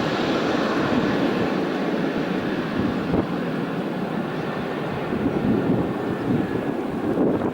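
Jet aircraft roar, a steady rushing rumble whose high hiss fades away over the seconds as the plane draws off.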